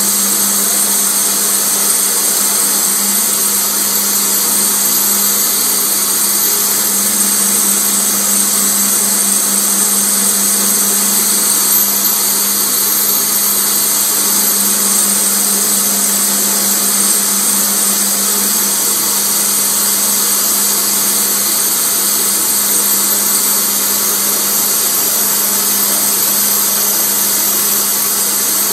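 Electric bench polishing motor running steadily, its white buffing wheel spinning while a piece of amber is pressed against it for polishing. It is a constant hum with a hiss over it.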